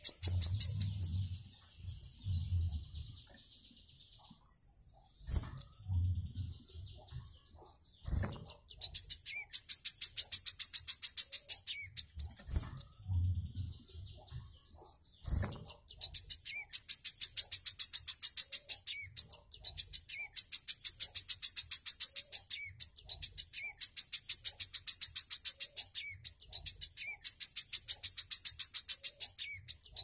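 A small cage songbird sings high, very fast trills that run a second or two each. The phrases come back to back from about a third of the way in, after a stretch of scattered chirps and a few low thumps.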